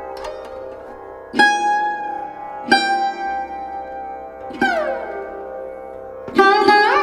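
Background instrumental music: a plucked string instrument playing single ringing notes over a steady drone, with one note sliding down in pitch about halfway through and another sliding up near the end.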